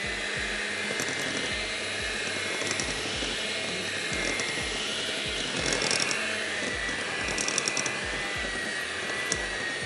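Electric mixer running steadily, beating cake batter, with a steady whine and a regular low knocking about three times a second.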